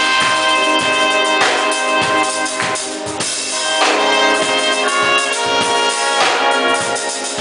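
Music: a band with a drum kit keeping a beat under held, chord-playing pitched instruments.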